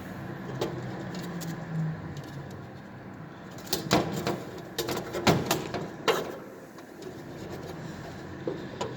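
Clicks and taps of hands and tools working wires into the terminals of a fire alarm control panel. Several sharp clicks come close together from about four to six seconds in, with a few lighter ticks before and after.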